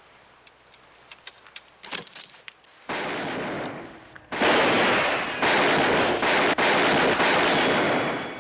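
Film gunfire: after a quiet stretch with a few faint clicks, a heavy volley of shots starts about three seconds in and grows louder, the reports running together into one dense din that continues until near the end.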